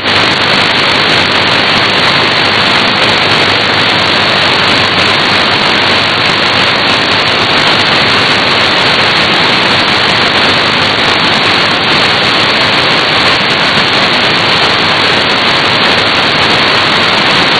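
Shortwave receiver static: a steady, even hiss of band noise with no signal, because the 15330 kHz broadcast carrier has gone off the air after the station's sign-off.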